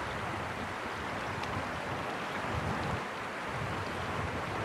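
Shallow water running over stones, a steady rush, with wind buffeting the microphone in low, uneven gusts.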